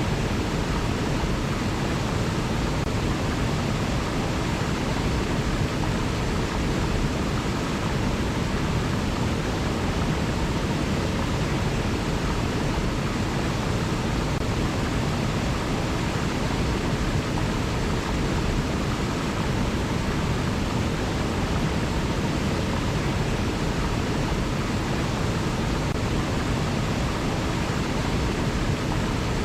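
River water flowing: a steady, even rush, fullest in the low end, with no change.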